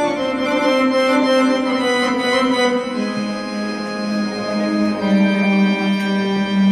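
Live Arabic ensemble's electronic keyboard playing a slow improvised taqsim for belly dance: long held notes that move step by step, with almost no drumming.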